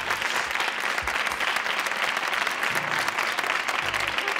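Studio audience applauding, a dense, even clapping.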